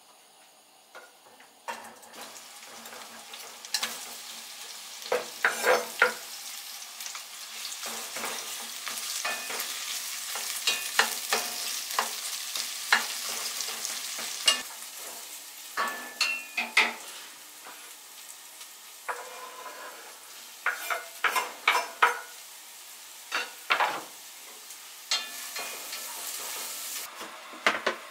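Sliced red onions sizzling as they hit a hot pot, then frying while a wooden spatula stirs them, with repeated scrapes and knocks of the spatula against the pot.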